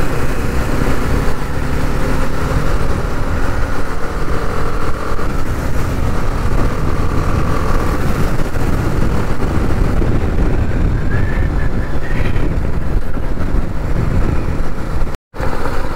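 BMW adventure motorcycle running at riding speed, with steady wind and road noise on the rider's microphone. The sound drops out for a split second near the end.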